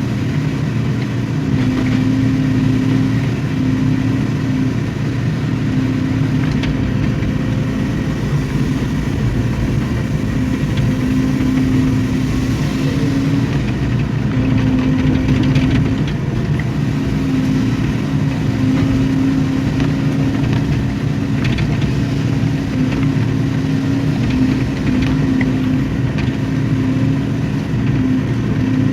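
A hydraulic excavator's diesel engine running steadily, with a low droning tone that breaks off and returns every few seconds.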